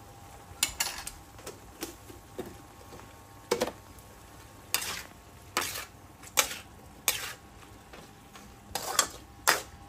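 Metal wok spatula scraping and clanking irregularly against an aluminium wok while stir-frying offal and shallots, about a dozen knocks, over a low sizzle of the simmering sauce.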